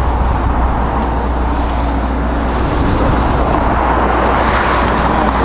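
Steady noise of passing road traffic, a continuous haze of tyre and engine sound with a deep low rumble.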